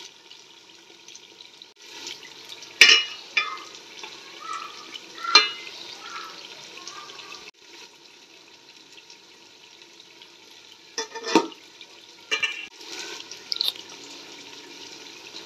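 Chicken pieces frying in oil with onions and green chillies in a wok, a steady sizzle. A few sharp clicks stand out above it, the loudest about three and five seconds in.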